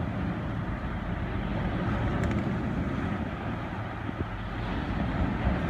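Steady low rumbling background noise, with a couple of faint clicks about two seconds in.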